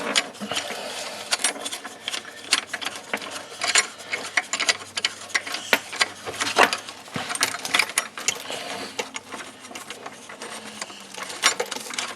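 Irregular clicking and rattling of a faucet's mounting nut being run up the threaded shank with the faucet maker's tool, worked by hand under the sink.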